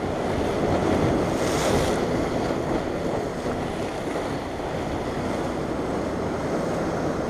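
Sea waves washing and breaking over shoreline rocks, with wind buffeting the microphone. A louder surge of wash comes about a second and a half in.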